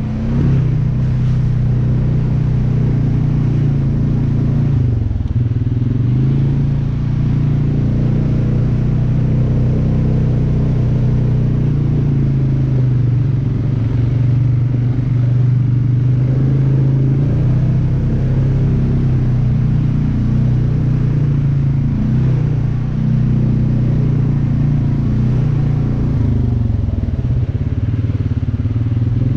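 Off-road vehicle engine running at a steady note, dipping in pitch briefly about five seconds in and again near the end.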